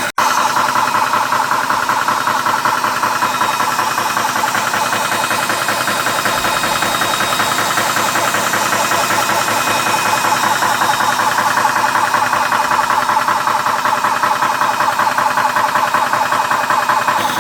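Small high-pressure 300-bar PCP air compressor running steadily under load, its piston pumping in a fast, even pulse while it fills an air rifle's reservoir.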